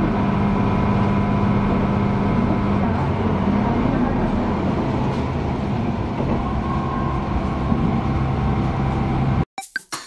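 A Chizu Express HOT3500-series diesel railcar running, heard from inside the car: steady engine hum and rolling noise, the engine note dropping to a lower pitch about four seconds in. Near the end it cuts abruptly to music with a knocking, wood-block-like beat.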